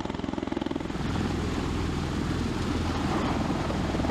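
Bell Boeing V-22 Osprey tiltrotor flying in helicopter mode, its twin proprotors giving a rapid, steady beat over the engines' low drone, growing louder about a second in.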